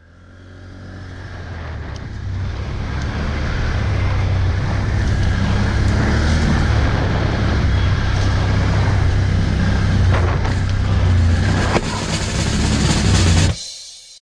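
Quad bike (ATV) engine running steadily under way, with a few short knocks; it fades in over the first couple of seconds and drops away sharply near the end.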